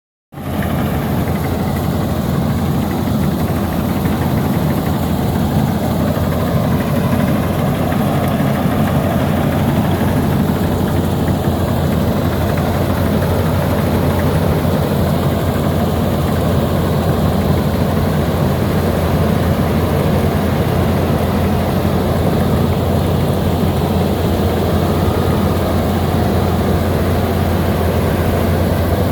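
Bimo Maxxi combine harvester running steadily, a loud continuous low engine hum with machinery noise over it.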